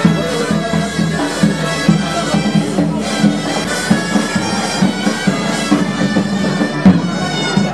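Folk tune played on a reedy wind instrument of the bagpipe kind, a melody over a low, steady drone.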